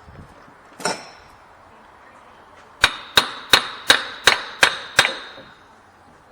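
Hammer blows on metal of the truck's front suspension: a single strike, then seven quick strikes at about three a second, each ringing briefly.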